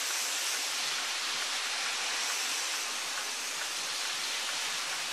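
Steady, even hiss of background noise, with no distinct event over it.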